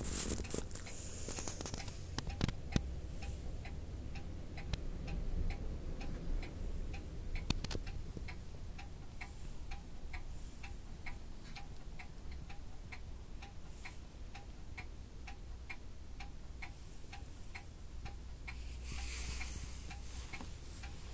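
A clock ticking steadily, about two ticks a second, over a low steady hum, with a few louder clicks in the first half.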